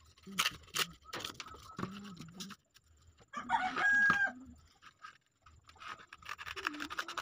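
A rooster crows once, about three and a half seconds in; it is the loudest sound. Around it are scattered crackles and clicks of sandpaper being handled.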